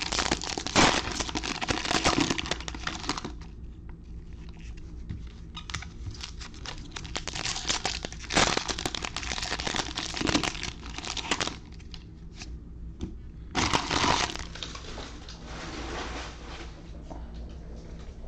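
Wrapper of a Panini Absolute football fat pack being torn open and crinkled by hand, in spells of rustling: a few seconds at the start, a longer spell in the middle, and a short burst about three-quarters through.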